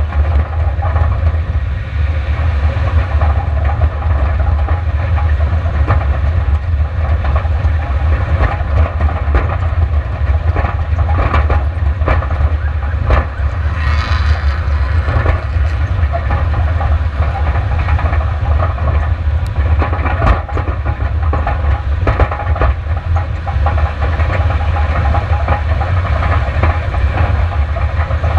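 Onboard sound of a long-travel Subaru Outback racing over a rocky dirt track: a heavy, steady low rumble with constant irregular rattling and clattering as the car pounds over rocks and ruts. About halfway through, a brief hissing rush as another race vehicle goes by close alongside.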